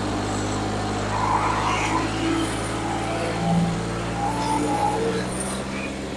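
New Holland 3630 tractor's diesel engine, fitted with a turbo and a modified fuel pump, running steadily under heavy load while pulling a disc harrow hard enough to lift the front wheels.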